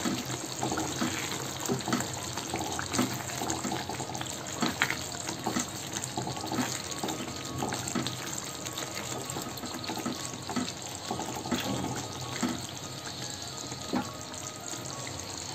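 Thick coconut-cream chicken curry simmering in a pan: a steady hiss with small irregular bubbling pops.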